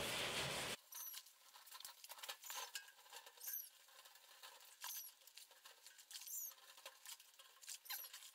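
A soapy sponge scrubbing the inside of a stainless steel stock pot. After a louder noise that cuts off under a second in, there is faint rubbing with short, very high squeaks about once a second.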